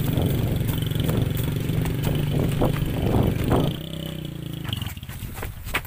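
Small motorcycle engine running steadily, then easing off to a lower, quieter note about four seconds in.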